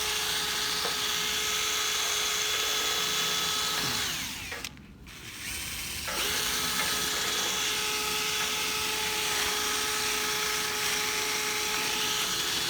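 Power drill running steadily, of the kind that drives a rotary brush through a dryer vent. It winds down about four seconds in, stops for about two seconds, then spins back up and runs on steadily.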